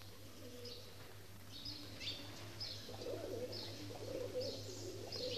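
Faint bird calls: short high chirps repeating every second or so, and from about three seconds in, lower wavering cooing calls.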